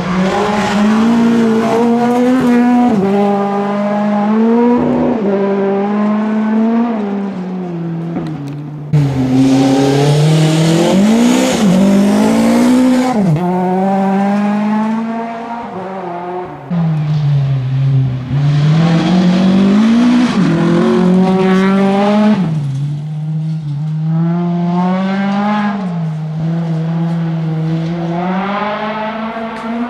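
Volvo 240 rally car's engine heard from the cockpit at full stage pace, revving up through the gears and falling back on lifts and braking, with several quick pitch drops at gear changes.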